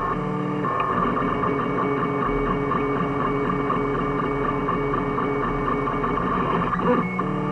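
Stepper motors of a home-built 3D printer whining in short, quickly changing tones as the print head moves, over a low steady hum. Guitar music comes back in near the end.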